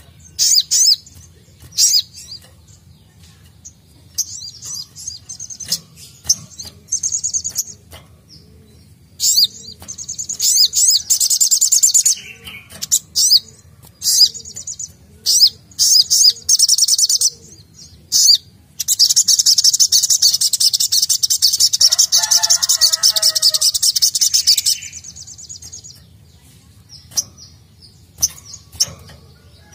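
A caged sunbird (sogok ontong) singing: many short, high chirps broken by rapid high trills of a few seconds each, the longest running about six seconds just past the middle.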